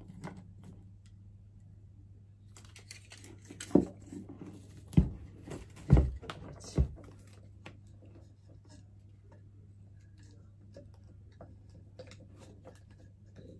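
Handling sounds of a salt lamp being fitted with its bulb holder and cord: rustling with four sharp knocks in the middle stretch, then a few faint clicks.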